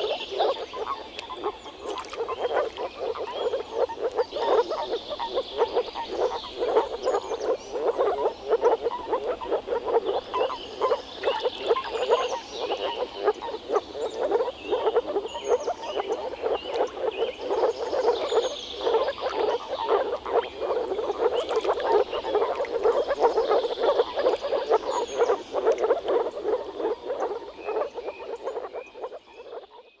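Breeding chorus of many male moor frogs (Rana arvalis) calling through their vocal sacs: a dense mass of rapid, overlapping low pulses, with fainter higher chirps over it. It fades out near the end.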